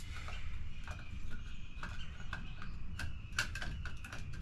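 Shotshell primers being tipped out of a primer box, the small metal primer cups dropping and clicking against each other in irregular light clicks.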